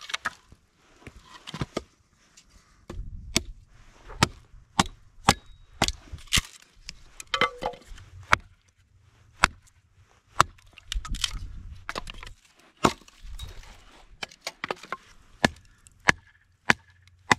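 Hatchet splitting firewood into kindling: a series of about twenty sharp chopping strikes into wood at an irregular pace, starting about three seconds in.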